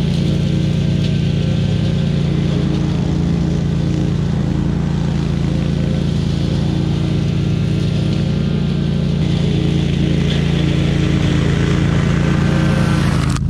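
Gasoline engine of lawn equipment running steadily at a constant speed, working through tall overgrown grass.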